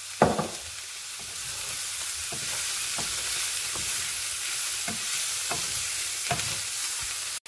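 Tofu cubes and bell peppers sizzling in a non-stick frying pan as a wooden spatula stirs them, scraping against the pan about every second. A sharper knock comes just after the start.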